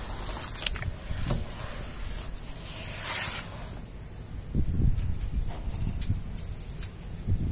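Wet sand being squeezed and crumbled by hand in a tub of muddy water: irregular squelches and sloshing, with a short splash about three seconds in.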